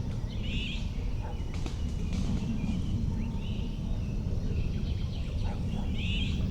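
Birds giving short calls every second or two over a steady low rumble.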